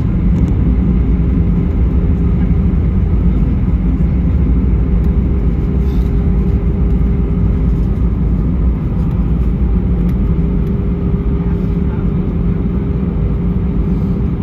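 Cabin noise of an Airbus A319 rolling on the ground after landing: a steady, loud low rumble of its CFM56 engines and wheels on the tarmac, with a faint steady hum.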